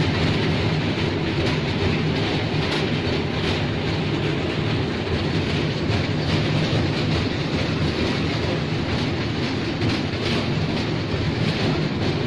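Children's park ride train running, heard from inside its open carriage: a steady rumble with repeated clacks.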